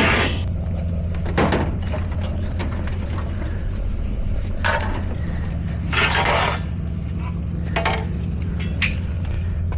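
Junk and scrap being tossed and shifted on a truck: several short knocks and scrapes, the loudest about 6 seconds in, over a steady low hum.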